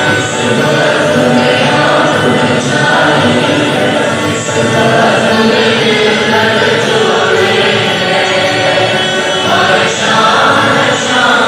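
Several voices singing together, a choir-like song held steadily throughout.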